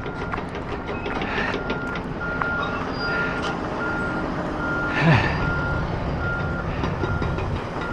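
Backup alarm of heavy construction equipment beeping steadily, a little faster than once a second, over the low rumble of diesel machinery. A louder burst of machine noise about five seconds in.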